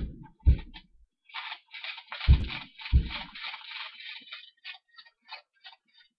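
Four dull knocks on a tabletop, two near the start and two a little over two seconds in, with a run of short scratchy rubbing and rustling sounds from small objects handled by hand, thinning out into scattered light ticks.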